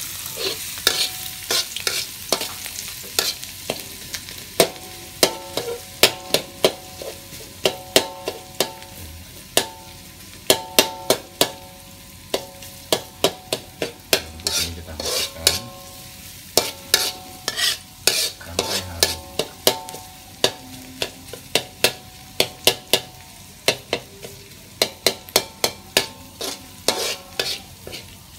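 Minced garlic sizzling in hot oil in a wok, while a metal spatula stirs it. The spatula scrapes and clinks against the wok a few times a second, each clink ringing briefly.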